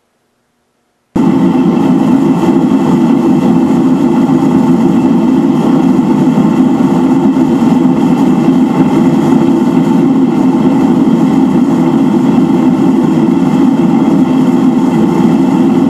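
Gas burner of a small firebrick forge running steadily with a loud, even rushing noise, cutting in suddenly about a second in.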